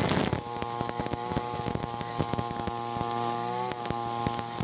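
Ogawa 26cc two-stroke brush cutter engine running at a steady speed, a buzzing tone with small wavers in pitch.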